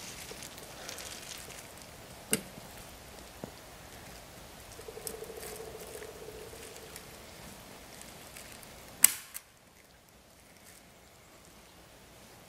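A staple gun fired a few times, giving sharp clicks: a light one about two seconds in and a louder one with a quick second click about nine seconds in. Faint outdoor background between them.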